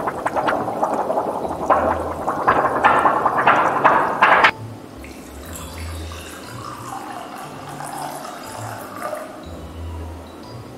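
A thin sheet flexed and shaken in loud bursts as foley for boiling water, then, after a sudden cut, a thin stream of water poured from a ceramic teapot into a cup.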